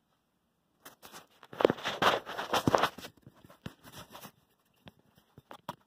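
Handling noises: a stainless steel capsule being shifted and set onto a wooden block on the drill press table, a dense run of knocks and scrapes that fades into a few scattered light clicks. The drill is not running.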